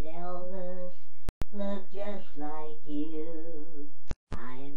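A single voice singing a slow melody with drawn-out held notes, broken twice by brief sudden dropouts to silence, about a second in and near the end.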